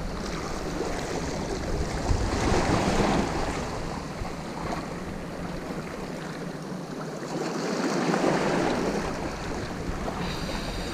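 Sea waves washing onto the shore, swelling up twice a few seconds apart, with wind buffeting the microphone.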